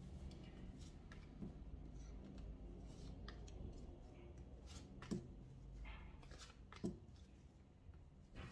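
Tarot cards being dealt one at a time from the deck onto a table: a few quiet card snaps and taps, about one every two seconds, over a faint low room hum.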